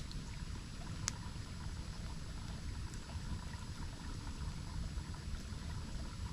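Waterfall and stream water rushing steadily, with a deep low rumble under it. A single sharp pop about a second in.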